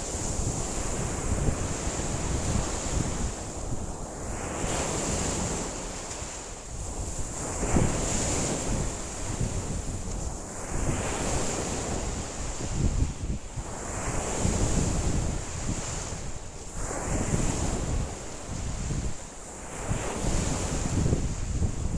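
Wind-driven lake waves breaking and washing ashore, swelling and easing every few seconds, with strong wind buffeting the microphone in a low rumble.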